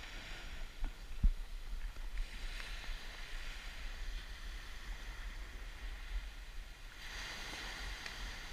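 Surf washing on the shore, swelling twice, with wind rumbling on the microphone and one dull thump about a second in.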